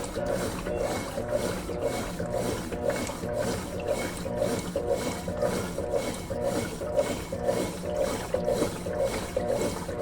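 Consul Facilite 11 kg top-loading washing machine agitating a load of clothes in water, its newly replaced agitator swishing back and forth in a steady rhythm of about two strokes a second.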